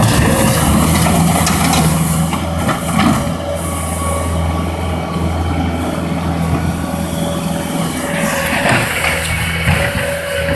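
A Bobcat compact track loader's diesel engine runs steadily as the machine drives up to a palm trunk and works its bucket against it. There is a brief knock about three seconds in, and the machine sounds harder-worked near the end.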